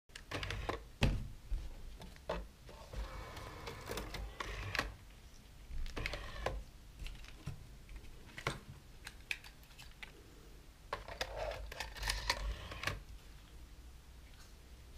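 Irregular mechanical clicks and short whirs from the Aiwa ADN-1's MiniDisc mechanism as it takes in and reads a disc.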